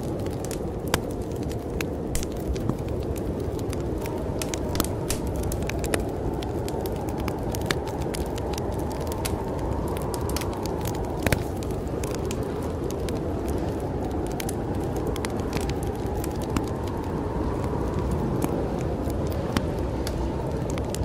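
Wood fire crackling in a fireplace, with frequent irregular sharp pops, over a steady low howl of storm wind that swells and eases.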